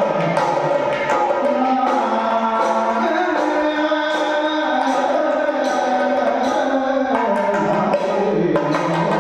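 Indian classical-style music: hand drums play steadily under a melody line that slides between held notes.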